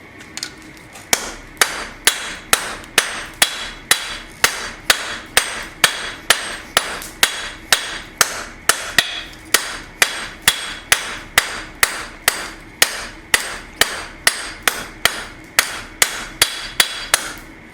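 Blacksmith's hammer striking steel on an anvil, about two ringing blows a second with a lighter tap between them, starting about a second in. He is knocking the corners off a square bar to forge it octagonal.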